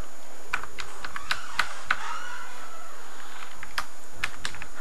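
Computer keyboard keystrokes typing in a password: a handful of separate key clicks in the first two seconds, a pause, then another handful near the end, over a steady background hiss.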